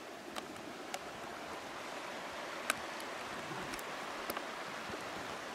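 Steady rush of a shallow river running over gravel, with a few faint ticks.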